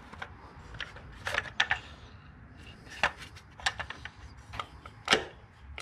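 A Ford 302 V8's distributor being turned by hand and set back down into its bore in the engine: a scatter of sharp clicks and knocks of its metal housing and plastic cap, about eight, irregularly spaced.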